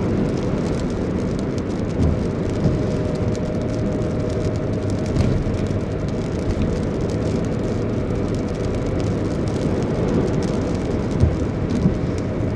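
Steady road and engine noise of a car driving, heard from inside the cabin, with a few small bumps.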